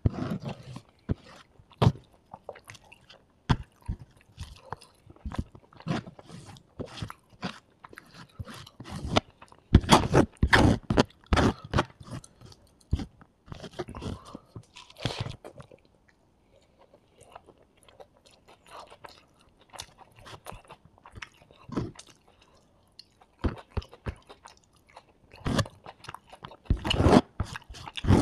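Close-miked chewing and crunching of mouthfuls of fried rice eaten by hand, with wet mouth clicks. It comes in bouts, with a quieter pause about halfway through.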